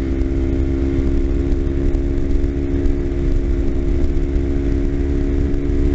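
Kawasaki Ninja 250's parallel-twin engine running steadily at cruising speed, its even engine note over a low rumble.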